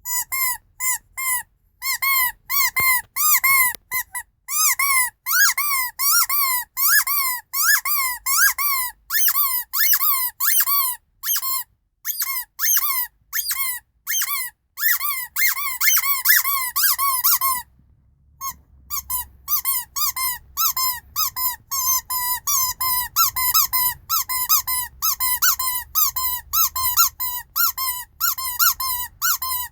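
Rubber squeeze toys of Snow White and the Seven Dwarfs squeaked over and over in quick succession, about two to three short, bending squeaks a second, with a brief pause a little past halfway.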